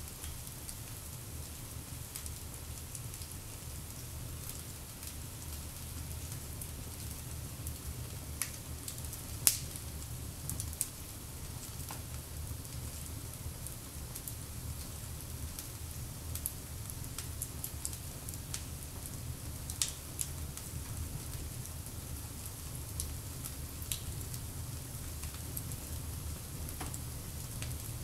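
Open wood fire of pine cones, pine and holm oak logs burning and crackling, with scattered sharp pops over a steady low rumble. The loudest pop comes about nine and a half seconds in.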